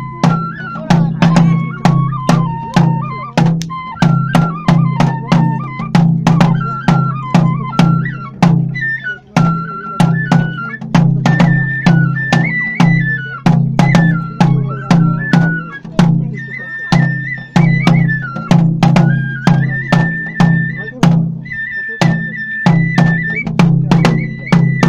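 Traditional Japanese kagura festival music: a high melody moving in steps between held notes over steady drum beats, with sharp strikes at roughly two to three a second.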